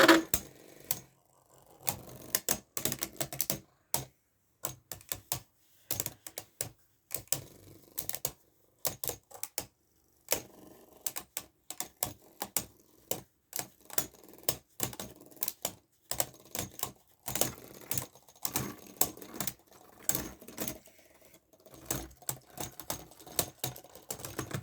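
Irregular plastic clicks and clacks of Beyblade Burst tops and parts being handled and snapped together, dozens of short taps spread unevenly throughout, with no spinning tops heard between them.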